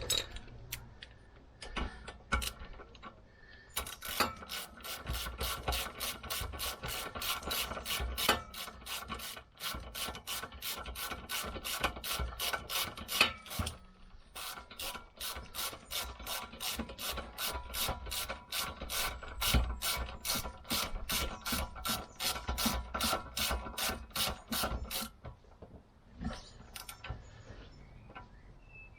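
Hand ratchet being worked to run bolts in while refitting a car's rear wheel bearing hub: a long train of sharp, even ratchet clicks, about three a second, with two short pauses. The first few seconds hold only a few faint knocks.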